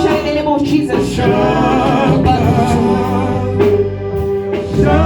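Gospel singing with voices over a band's bass and drums.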